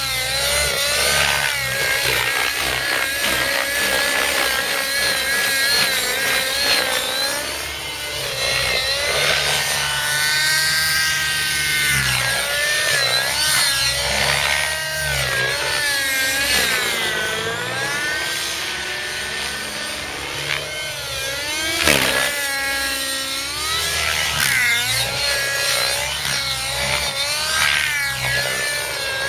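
Miniature Aircraft Velocity 50 nitro model helicopter flown hard: its small two-stroke glow engine and rotor whine continuously, the pitch swinging up and down as the engine loads and unloads through aerobatic manoeuvres. A single brief knock comes about three-quarters of the way in.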